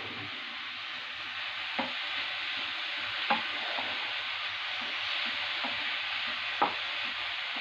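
Grated bottle gourd sizzling as it fries in ghee in a frying pan, stirred with a wooden spatula that knocks against the pan three times.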